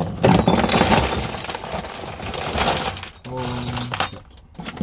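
A loud clatter of hand tools tumbling out of a toolbox and knocking together for about three seconds, followed by a short held tone.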